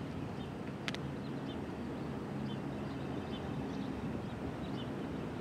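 A vehicle engine running with a low, steady hum, with faint bird chirps and a single brief click about a second in.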